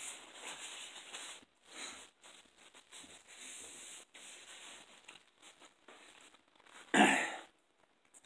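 Paper napkin rustling and small eating noises, with one short, loud burst of noise about seven seconds in.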